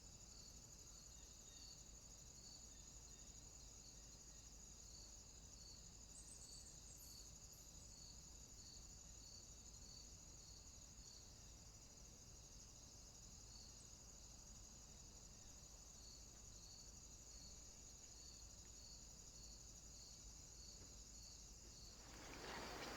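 Faint crickets chirping: a steady high trill with a soft pulse about one and a half times a second. A louder rushing noise swells in near the end.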